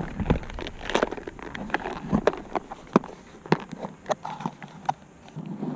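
Irregular close clicks and knocks, several a second, of hands handling a spinning rod, reel and lure next to the microphone.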